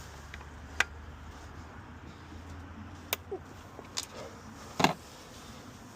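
Hand tools clicking and knocking against the engine as the T30 bolts holding the high-pressure fuel pump are slackened: four short sharp clicks, the loudest near the end, over a faint low hum in the first half.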